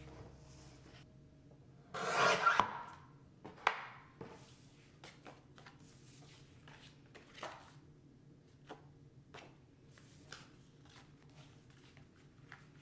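Hands handling packing materials: a loud burst of rustling about two seconds in, then scattered light taps, clicks and scrapes.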